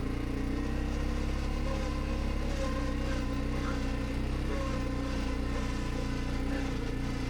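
ATV engine idling steadily, its pitch wavering slightly.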